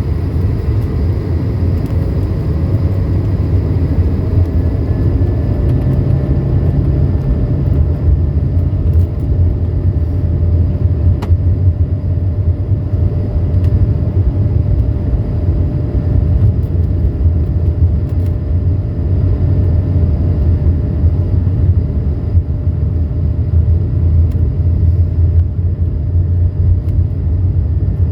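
Takeoff roll heard from inside the cabin of an Airbus A220-300: its two Pratt & Whitney PW1524G geared turbofans run at takeoff thrust over a loud, steady low rumble of the wheels on the runway, with a faint steady whine above.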